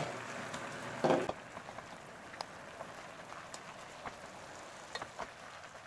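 Soy-based braising sauce bubbling in a pot of chicken drumettes, a soft steady hiss with faint scattered pops. A short, louder noise comes about a second in.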